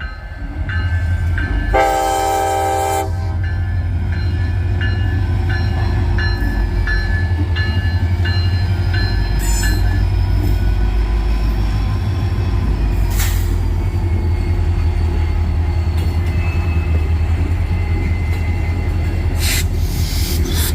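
Diesel freight locomotive sounds one horn blast of about a second and a half near the start, then a steady low rumble of the locomotive and rail cars moving through a switching move, with faint high wheel squeal.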